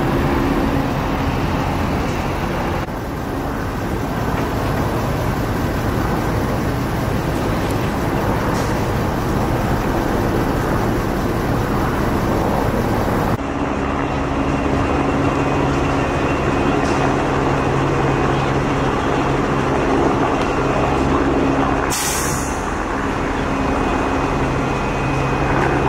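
Large diesel fire truck engine running steadily, with a short hiss of air from the truck's air brakes about 22 seconds in.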